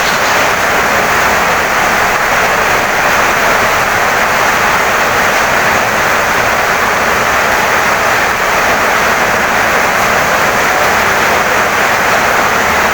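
Heavy rain pouring steadily on a wooden house, a dense, even hiss that doesn't change in level.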